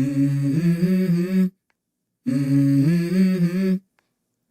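Wordless hummed vocal line opening a song, heard as two phrases of about a second and a half each with a short silence between them, the pitch stepping up within each phrase.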